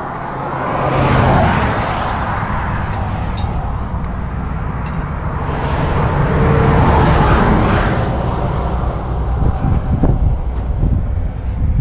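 Highway traffic passing close by: a vehicle swells past about a second in and another, longer one from about six to eight seconds, over a steady low rumble.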